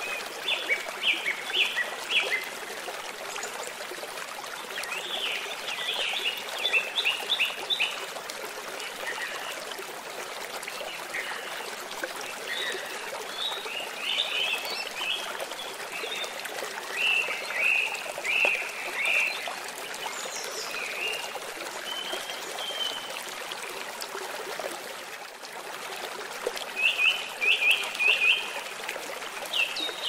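Steady rush of a waterfall, with a songbird chirping in quick runs of short high notes every few seconds.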